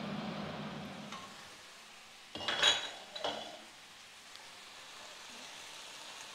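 Glass pan lid clinking against the rim of a kadai, a loud ringing clatter about two and a half seconds in and a smaller clink just under a second later, with faint sizzling of the vegetable curry in the pan.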